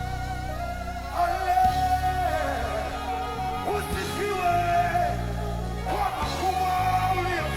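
Music with singing: a sung melody over sustained bass notes that change about once a second, with a steady held tone throughout.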